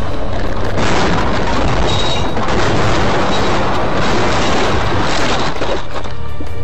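Dashcam audio of a car crashing into an oncoming van: a loud, distorted crash noise about a second in, then continuing loud noise as the car is thrown about.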